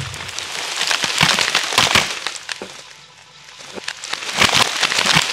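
Aftermath of a buried homemade alcohol-vapour bomb blast: the explosion dies away as soil and debris rain down in a dense spatter of small impacts. The spatter fades around the middle and grows loud again about four and a half seconds in.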